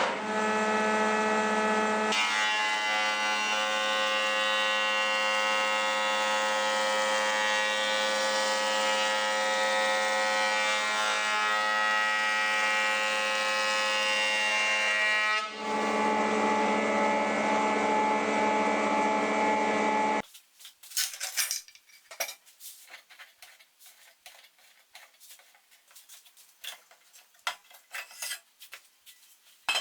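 Elektra Beckum HC 260 jointer-planer running with a steady, loud motor whine made of several held tones. Its tone shifts about two seconds in and again near fifteen seconds, and it cuts off suddenly about twenty seconds in. Scattered light clinks and taps follow.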